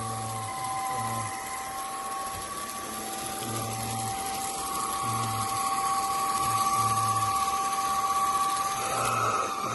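SMOTURE cordless stick vacuum's brushless motor running: a steady whine over a rushing hiss of air, with a second whine that wavers a little in pitch. It grows louder through the middle and rises briefly in pitch near the end.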